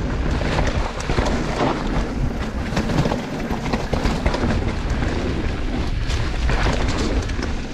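Mountain bike riding down a dirt trail: tyres rolling and skidding over the rough ground, the bike clattering over bumps, with wind rumbling on the microphone.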